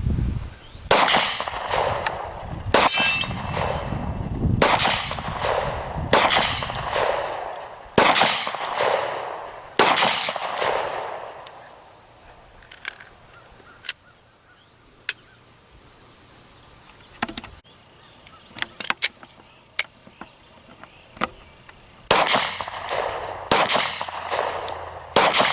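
Glock 30 pistol firing 180-grain full metal jacket 10mm through a .45-to-10mm conversion barrel: six shots at a steady pace, each sharp crack trailing off in a ringing clang, then a pause with a few small clicks, then three more shots near the end.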